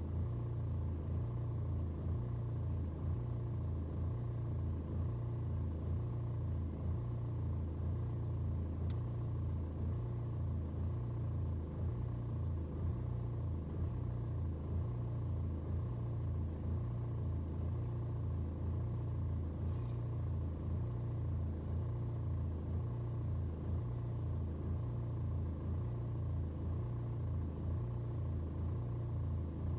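BMW 120d's N47 four-cylinder diesel idling roughly after a cold start, its low engine note pulsing unevenly as the revs fluctuate. This is the cold-start rough idle that clears once the engine is warm, with no fault codes to explain it.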